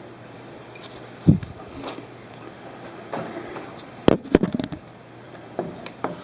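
Hand handling noise from small hardware being fitted together for a razor-blade algae magnet: scattered clicks and knocks, a dull knock about a second in and a quick run of clicks around four seconds, over steady background noise.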